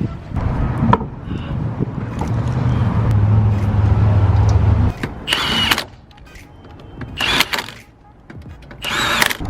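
Three short bursts of a pneumatic impact wrench, each with a high whine, about a second and a half apart in the second half, over background music.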